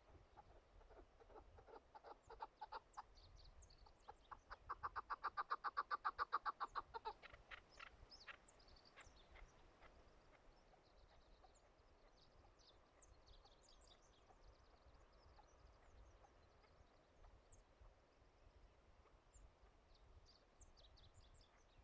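Chukar partridge calling: a rapid rhythmic series of clucking notes that builds, is loudest about five seconds in, then slows and fades out by about ten seconds in. Small birds chirp faintly throughout.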